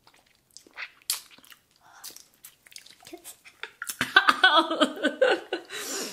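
Small wet mouth clicks and smacks as sour liquid candy is sucked and squeezed from a tube, then loud laughter breaking out about four seconds in.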